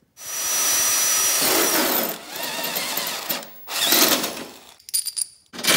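Cordless drill with a step bit drilling into a lawn tractor's fender pan. It runs in several bursts: a long first run of about two seconds whose high whine drops as it ends, then shorter runs, with a few light clicks shortly before the end.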